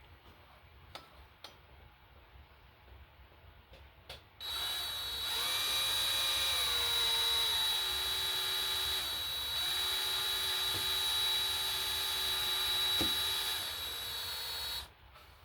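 Electric drill running for about ten seconds as it drills out a broken bolt in an engine block. It starts about four seconds in with a steady high whine, drops in pitch as the bit bites, and cuts off suddenly; a few small clicks come before it starts.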